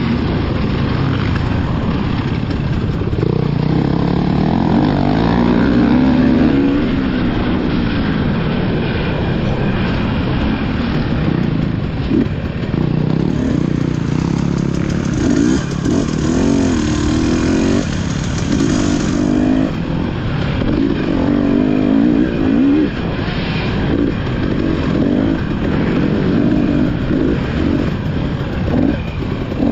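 Off-road dirt bike engines revving up and down again and again, the pitch rising and falling as the riders work the throttle through the trail and pass by.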